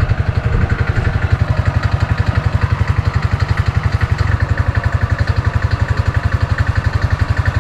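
An engine running steadily with a low, even pulsing beat of roughly ten pulses a second.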